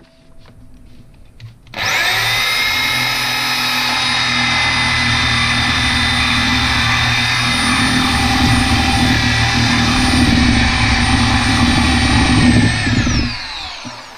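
Corded electric drill spinning up about two seconds in, running steadily while drilling into the bushing eye of a car's front control arm, where the old cracked rubber silentbloc sits, then winding down near the end.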